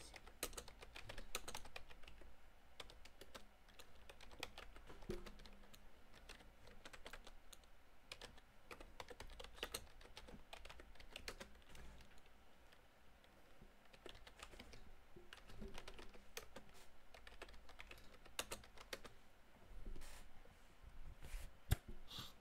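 Faint, irregular typing on a computer keyboard, keystrokes coming in scattered runs with short pauses, and one sharper knock near the end.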